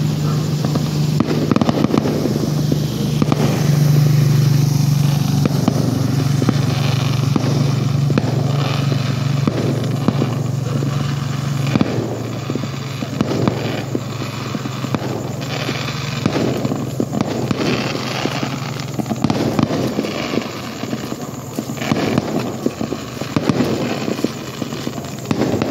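Fireworks going off at street level in rapid, irregular crackling and popping, over a steady low hum that fades about halfway through.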